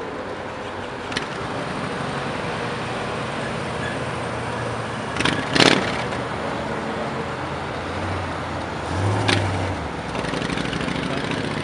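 Car traffic at an intersection, with a classic Ford Mustang fastback driving past close by. About five seconds in come two sharp, loud cracks, and a little later a low engine rumble swells briefly.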